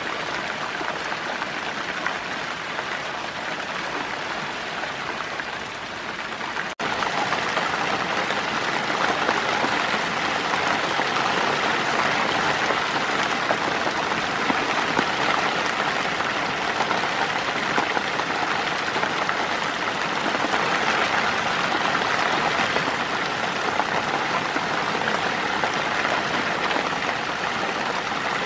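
Steady rain falling. About seven seconds in it drops out for an instant and comes back a little louder.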